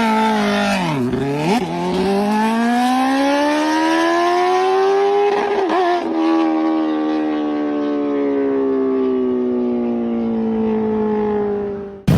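Superbike engine and exhaust at high revs. The pitch dips sharply about a second in, rises smoothly for several seconds, breaks briefly near the middle, then falls slowly. The sound cuts off abruptly near the end.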